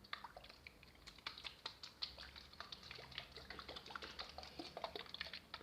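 Rapid, irregular ASMR tapping on a hard object: many light, quick taps a second.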